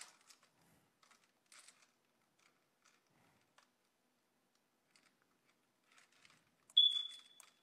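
Faint scattered clicks and taps, then a short high beep about seven seconds in that dips slightly in pitch and fades.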